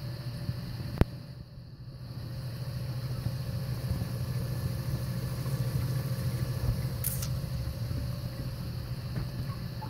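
Reef-aquarium sump running: a steady low hum from its pumps and the Curve 7 protein skimmer, with an even hiss of moving, bubbling water. A sharp click sounds about a second in.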